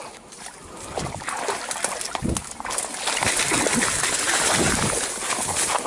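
A hooked snakehead splashing in weed-covered shallow water and being dragged through reeds and dry stems onto the bank, with water sloshing and vegetation rustling. The noise grows loud about halfway through and stays loud until just before the end.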